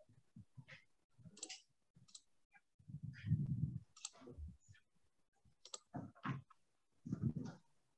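Faint scattered computer mouse clicks, with a few dull low thumps about three seconds in and again near the end.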